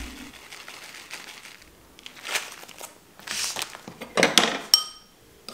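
Plastic bag of grated Parmesan crinkling in a few short bursts as it is handled and set down, with a short ringing clink near the end.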